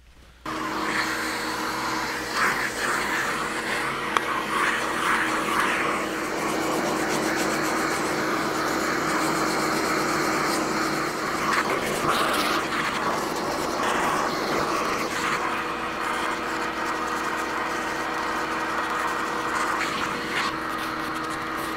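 Hand sanding an epoxy-coated seat with a foam sanding block and 80-grit paper: irregular scratchy strokes. Under them is a steady machine drone with a low hum, which comes in about half a second in.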